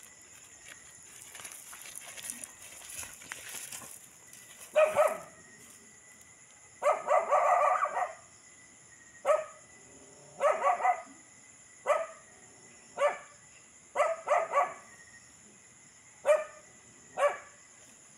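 A dog yelping and crying in distress, about ten loud, pitched cries starting about five seconds in, mostly short with one longer cry. These are the cries of a poisoned dog convulsing on the ground.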